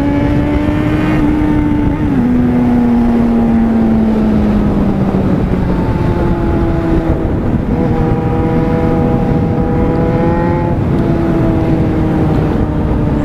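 Yamaha FZ6N's inline-four engine running at high revs, with wind rushing over the helmet microphone. The engine note sags slowly for a few seconds, then jumps up in pitch twice, once near the middle and again a few seconds later.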